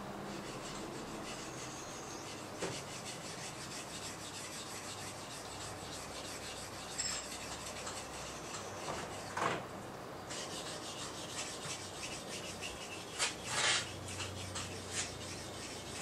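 A Japanese nata (brush knife) blade being stroked back and forth on a whetstone: a repeated scraping rasp of steel on stone, the strokes coming faster and louder in the second half.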